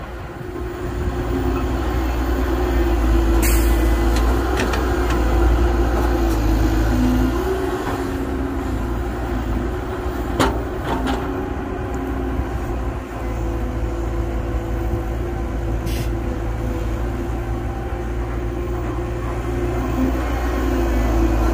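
Heavy diesel earthmoving machinery, an excavator working with a dump truck, running steadily, with a few sharp knocks.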